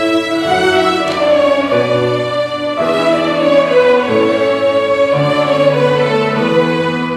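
A large ensemble of children's violins playing a melody together in long bowed notes, with a lower cello line underneath.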